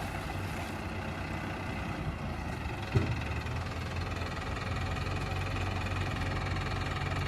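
Heavy diesel engine idling steadily, with a single short knock about three seconds in. The engine grows slightly louder in the second half.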